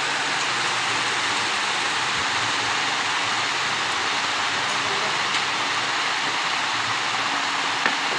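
Fresh cow's milk pouring in a steady stream from a stainless steel milking bucket through a cloth strainer into a metal milk can.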